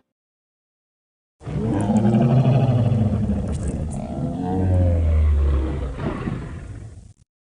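Film sound effect of a triceratops roaring: one long, low roar of about six seconds that starts about a second and a half in and goes deeper in its second half before cutting off.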